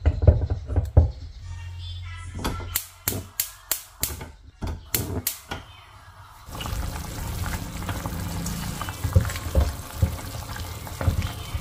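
Gas stove burner being relit: the igniter clicks about ten times in quick succession, then the burner catches and a steady hiss of flame and simmering soup runs on, with a few knocks of the pot and spoon. A pot knocks on the burner grate at the start.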